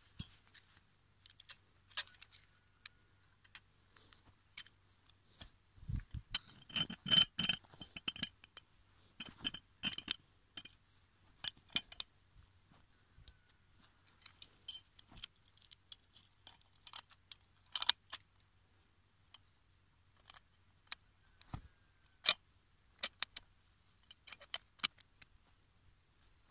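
Rusty steel foothold trap and its chain being handled and set: scattered metallic clicks, clinks and chain jingling, with a cluster of louder clanks and brief ringing about six to ten seconds in.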